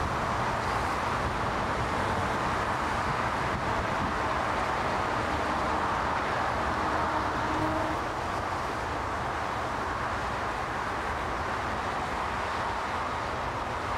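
Jet airliner engines running at taxi power: a steady rushing whine over a low rumble, with some wind on the microphone.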